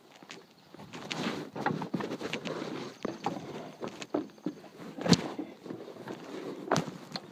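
Irregular handling noises, rustling and shuffling with scattered clicks, and sharp knocks about five seconds in and again near the end.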